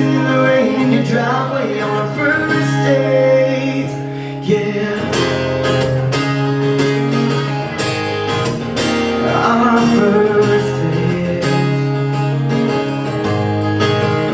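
Live band music led by strummed acoustic guitar, playing on without lyrics as the song's ending.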